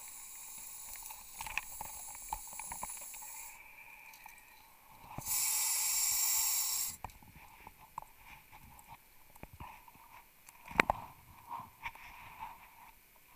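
Underwater sound of a rebreather diver's gear: a steady hiss, then about five seconds in a loud burst of gas hissing through the diving equipment that lasts under two seconds. Scattered small clicks and knocks of gear run throughout, with one sharp knock near eleven seconds.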